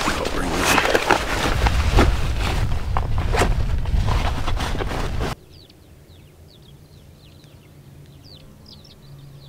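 Backpack straps, buckles and clothing rustling and clicking close to the microphone as a pack is taken off, with a low rumble; it cuts off suddenly about five seconds in. Faint short chirps of small birds follow.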